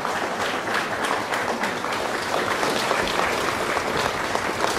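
Audience applauding: many people clapping, steady throughout.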